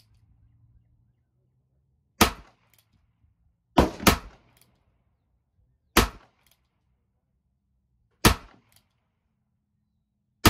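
Ruger Super Wrangler single-action revolver firing shot after shot, each a sharp crack with a short echo. Shots come about two seconds apart, with one pair in quick succession around four seconds in, and another shot lands right at the end.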